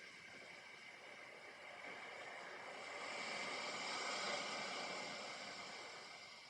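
Faint rustling hiss of a watercolour round brush working paint across cold-press paper, growing louder over a couple of seconds midway and then fading.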